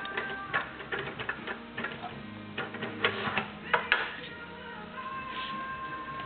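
Plastic toy cups and pots clattering and knocking on a toy kitchen as a toddler handles them, in irregular clicks, loudest around three to four seconds in. A faint tune plays underneath.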